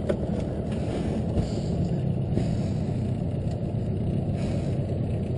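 Small boat's outboard motor running steadily at low speed: an even low rumble.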